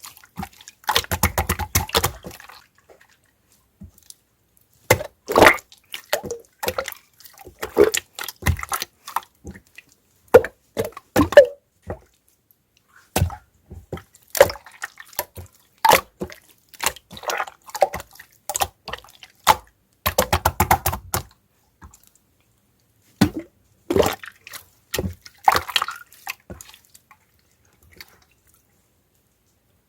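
Very sloshy clear slime being squished and worked by hand, giving wet, splashy clicks and pops in irregular bursts with short pauses, with two longer runs of dense crackling. The sounds die away near the end.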